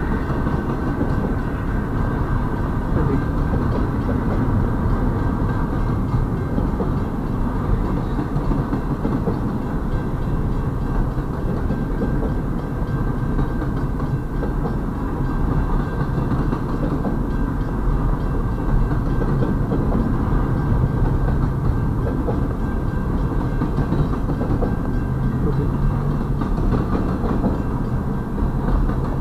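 Double-stack intermodal freight train of container well cars rolling steadily through a grade crossing: a continuous low rumble of steel wheels on the rails.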